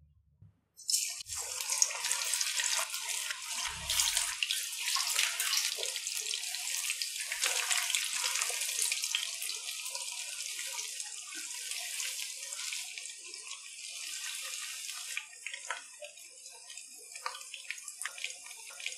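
Batter-coated chicken pieces deep-frying in hot oil: a loud sizzle full of crackles that starts suddenly about a second in, thinning to scattered pops and crackles over the last few seconds.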